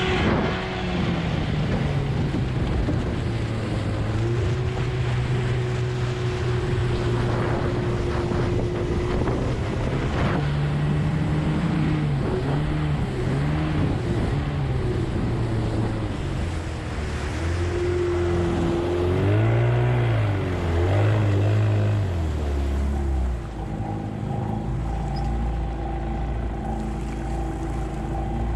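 Two-stroke 20 hp Evinrude outboard on a small hydroplane, with water rushing along the hull. The engine is throttled back from speed and runs at part throttle, its pitch rising and wavering, then drops to a low idle about three-quarters of the way through.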